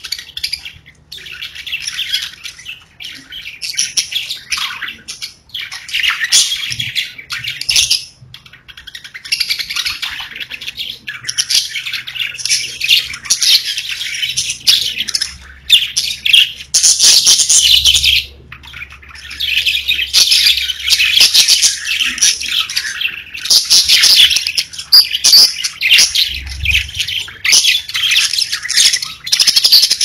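Pet budgerigars chirping and chattering in a dense, almost unbroken stream of high calls, with a few short pauses.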